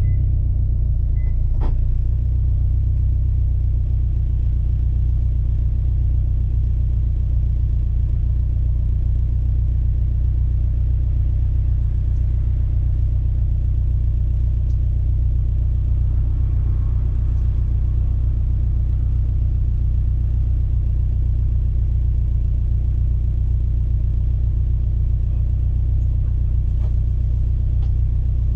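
Subaru STI's turbocharged flat-four engine running through its exhaust at a steady engine speed: a low, even rumble with no revving.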